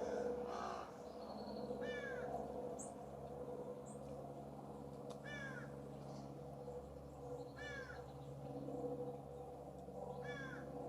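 A corvid giving a harsh, caw-like call again and again, one short call about every two and a half seconds. A steady low hum runs underneath.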